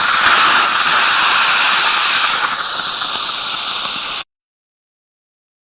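Dental saliva ejector suction hissing, a loud airy noise that changes tone about two and a half seconds in, as if the tip meets liquid or is partly blocked, and cuts off suddenly after about four seconds.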